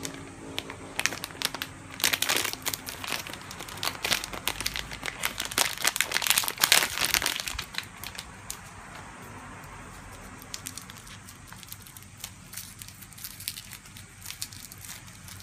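Plastic packaging crinkling and tearing as a bath ball is unwrapped by hand: a dense run of crackles in the first half, loudest a little past the middle, then sparser, fainter crackles as the clear film is peeled off the ball.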